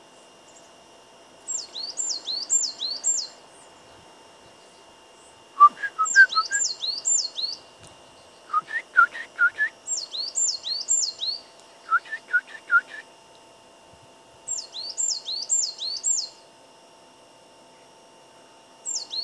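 A small songbird singing loud, high whistled phrases of four or five quick notes that each slide downward, repeated about every four to five seconds. Three shorter runs of lower, rising whistles fall between the phrases around the middle.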